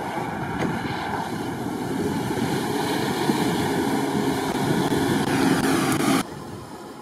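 Jeep Cherokee's engine running as the SUV ploughs through a flooded, muddy rut, with water and mud splashing, growing louder as it comes close. The sound cuts off sharply about six seconds in, leaving a much quieter background.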